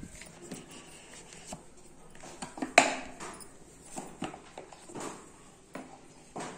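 A cardboard smartphone box being handled and opened: rustling, scraping and light knocks of cardboard, with one sharp knock about three seconds in as the lid comes off. A plastic-wrapped phone is slid out of the box near the end.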